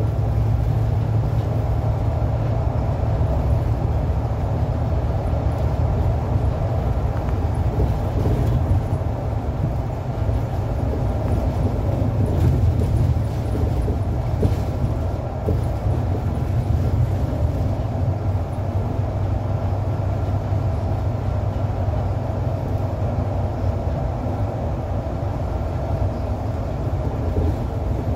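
Inside a Mercedes-Benz city bus driving at a steady speed: the engine's steady low hum mixed with tyre and road noise, with no gear changes or braking.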